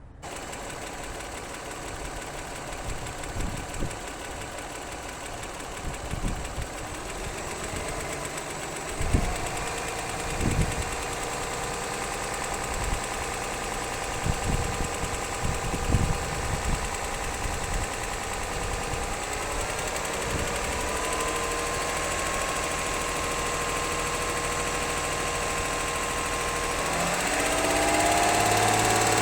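Car engine running with a heavy knock: a series of sharp, uneven knocks in the first half, then the revs are raised in two steps. The knock is the one suspected to come from a piston.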